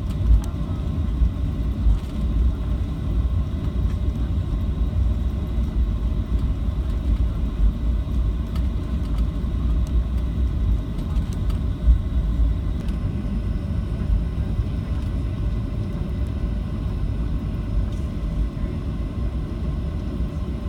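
Steady low rumble of a Boeing 737-700's cabin: engine and airflow noise heard from inside the aircraft, with a few brief thumps near the start and about twelve seconds in.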